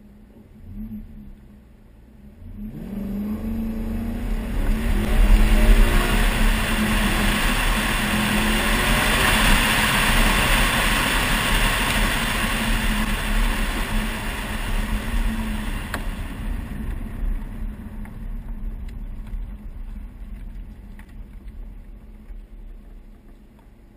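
Maserati Quattroporte engine blipped briefly, then accelerating hard with rising revs, loudest a few seconds in. It keeps running strongly for about ten seconds, then eases off and fades.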